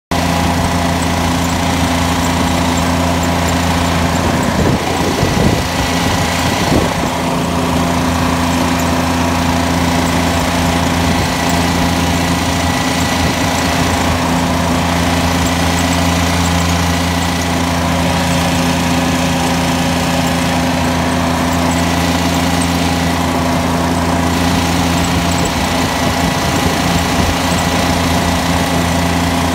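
Kubota G5200 garden tractor's diesel engine running steadily while the tractor pushes snow with its front blade. A brief rougher, uneven patch comes about five seconds in.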